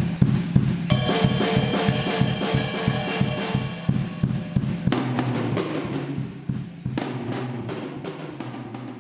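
Music led by a drum kit playing a steady, quick beat over held notes from other instruments, fading down over the last few seconds.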